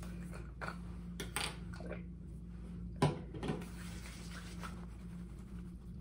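Light handling sounds of toner being applied by hand: a few soft taps and rubs, one sharper click about three seconds in, over a steady low hum.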